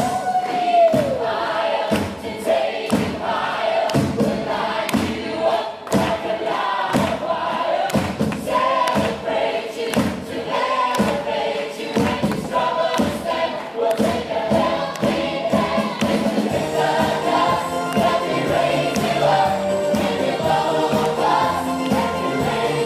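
Musical-theatre cast and chorus singing an upbeat pop-gospel finale together with a live band, over a steady drum beat, recorded live at a stage performance.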